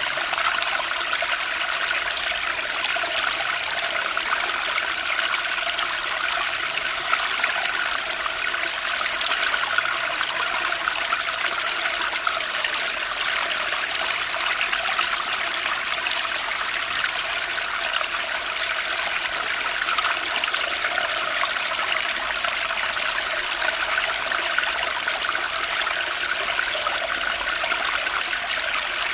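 Running water splashing and trickling steadily, a continuous bright hiss of many small splashes with little low end, unchanged throughout.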